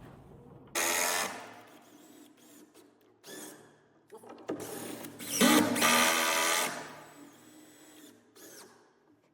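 Power drill driving screws into wood: a short run about a second in, then a longer run of about two seconds through the middle, with lighter knocks and handling between.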